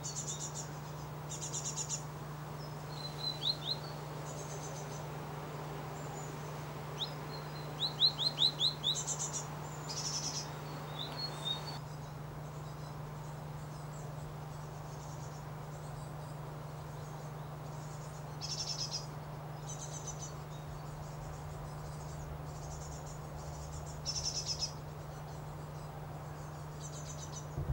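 Small songbirds calling: scattered short, high, buzzy chirps, with a quick run of about six falling notes about eight seconds in, over a steady low hum.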